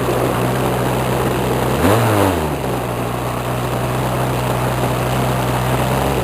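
Model airplane engine and propeller running steadily, heard from an onboard camera under loud wind rush. The engine speeds up briefly about two seconds in and drops back, and its pitch begins to fall near the end.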